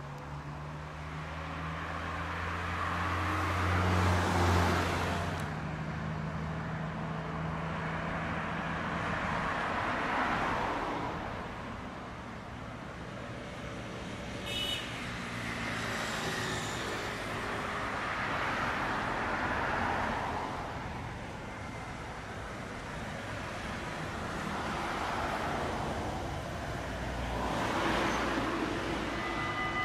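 CAF Urbos 100 trams running past on the tram line, mixed with cars passing on the road alongside: a series of swells of rolling and tyre noise that rise and fade, the loudest about four seconds in and another as a tram passes close near the end. A low steady hum runs through the first few seconds, and a brief click with a high ring comes about halfway.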